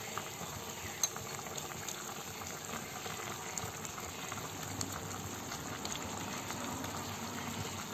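A pot of chicken, peanuts and coconut water bubbling steadily at a simmer, with a single sharp click about a second in.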